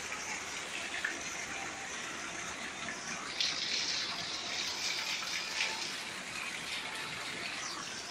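Steady rushing of water, growing louder and hissier from about three and a half seconds in until about six seconds.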